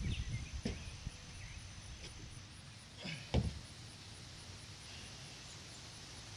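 Outdoor ambience: wind buffeting the microphone in low rumbles, with a heavier thump about three and a half seconds in, and a few faint bird chirps. A thin, high steady whine stops about two and a half seconds in.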